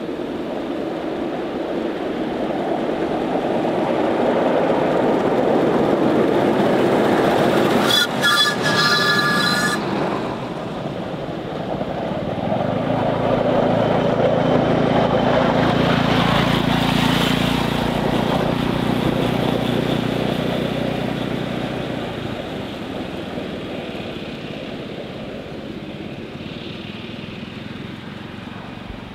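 Two miniature ride-on steam locomotives running past one after the other on a miniature railway track, each growing louder as it comes near and then fading. A short shrill note, like a whistle, sounds about eight seconds in.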